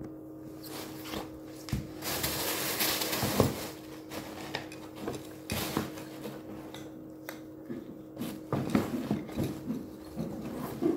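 A backpack being packed by hand: a plastic bag crinkling and rustling, with scattered knocks and clinks of buckles and zip pulls, over a steady low hum.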